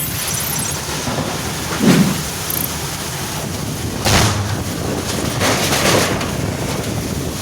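Heavy rain in a strong, gusting wind, with wind rushing over the microphone. The wind surges about two seconds in and twice more further on.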